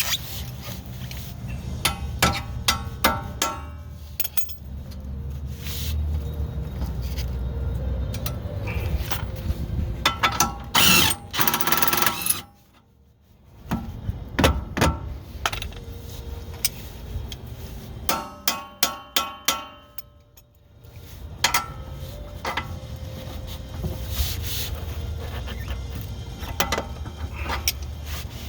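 A steel breaker bar used as a hammer, striking a bolt to drive it through a car suspension mount: runs of quick, sharp metal-on-metal blows, each with a short ring, separated by pauses.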